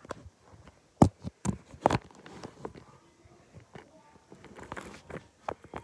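Handling noise from a phone being carried and moved about: a few sharp knocks about a second in and again near two seconds, then faint scattered taps and rubbing against clothing.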